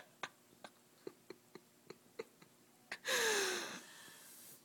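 A bag crinkling and rustling as a cat plays in it: a run of light ticks and crackles, then about three seconds in a loud rustling burst with a short falling tone, which dies down to a fainter rustle near the end.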